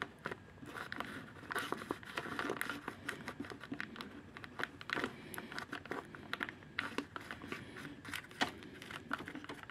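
Screwdriver scraping and tapping inside a clear plastic ink absorber box from a Brother inkjet printer, pushing the absorber sponge pad along into place. It makes irregular small clicks and scratchy rustles as the plastic housing and sponge are handled.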